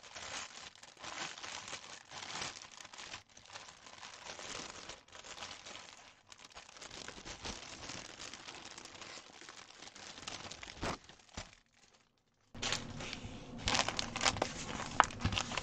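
Clear plastic packaging crinkling and crackling as a stamped cross stitch kit is unwrapped and handled, with paper sheets rustling. It breaks off for about a second near the end, then comes back louder.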